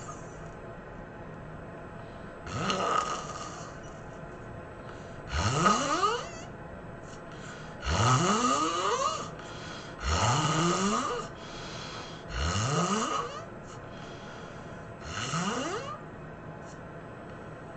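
A sleeping person snoring in a steady rhythm: six loud snores about two and a half seconds apart, each one rising sharply in pitch.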